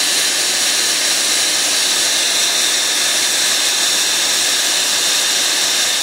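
Portable line boring machine running steadily, its boring bar taking a slow finishing pass through the ductile-iron pin bores of a backhoe swing tower. The result is an even, loud hiss with a faint high whine.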